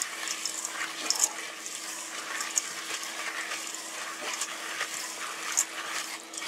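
Wooden spoon stirring a thick, sticky mix of granola and flaked coconut in melted coconut oil, cocoa and honey in a stainless steel pot: a wet, uneven scraping with many small clicks of the spoon against the pot.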